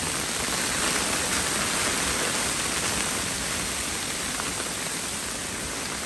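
Heavy rain falling steadily on forest leaves: a dense, even hiss.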